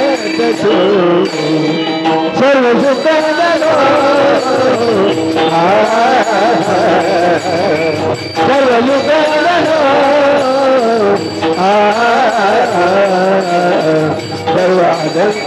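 Marathi abhang devotional singing: a voice carries a long, wavering, ornamented melodic line over a steady sustained accompaniment.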